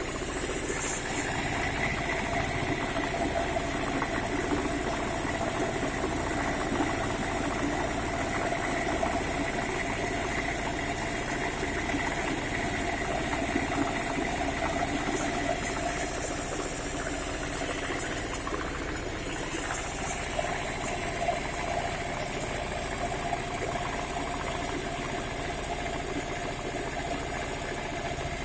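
Engine-driven feed mill running steadily, grinding dried corn kernels into chicken feed.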